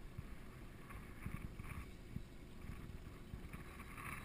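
Wind buffeting the microphone over small waves slapping against the hull of a small open boat, an uneven low rumble.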